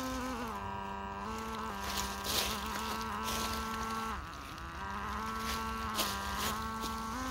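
Electric motor and gearbox whine of a WPL C-14 RC truck crawling, its pitch stepping down and up with the throttle, with scattered crackles of dry leaves and twigs under the tyres.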